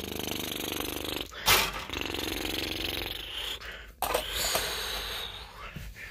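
A person making a raspy, buzzing noise in the throat, held steady and broken twice by short breaths, the first a loud one about a second and a half in.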